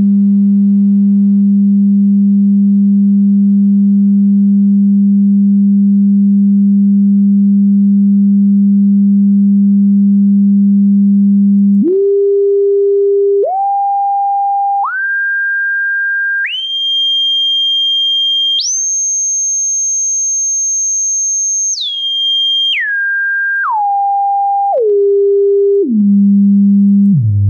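Pure sine test tone from an online tone generator played through iK iLoud Micro monitor speakers. It holds steady at 200 Hz, then about twelve seconds in it jumps up one octave at a time to a high whistle near 6,400 Hz. After about three seconds there it steps back down by octaves to 200 Hz, then drops lower right at the end.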